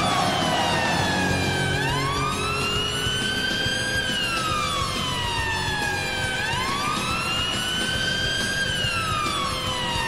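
Arena goal siren wailing, two tones gliding up and down together in slow sweeps that peak about every four and a half seconds, over faint music.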